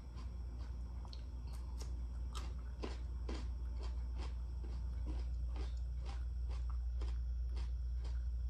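Chewing raw cucumber: irregular crisp crunching clicks, a few a second, over a steady low hum.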